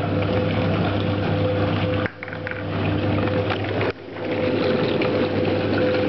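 1948 Hoover washing machine running: its electric motor hums steadily while the small spinning pulsator wheel churns soapy water in the tub. The sound drops sharply twice, about two and about four seconds in, then comes back.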